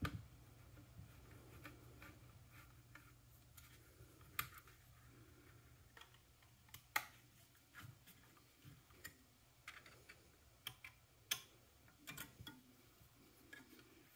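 Faint, irregular small clicks and ticks as a 1.5 mm hex driver works small screws out of a DJI FPV drone's plastic body.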